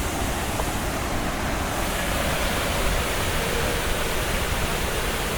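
Steady roar of a waterfall, rushing water without a break, growing a little brighter about two seconds in.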